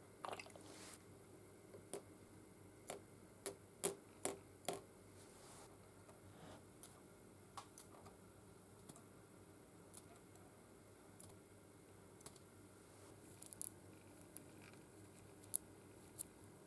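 Small blued steel screws and steel tweezers clicking against a glass dish of oil. There is a run of five sharp clicks between about three and five seconds in, then scattered fainter ticks.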